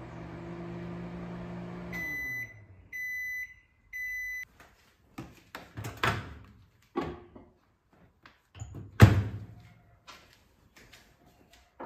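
Microwave oven running with a steady hum that stops about two seconds in, followed by three beeps signalling the end of the heating cycle. Then several clicks and knocks as the door is opened and things are handled, the loudest a sharp clunk about nine seconds in.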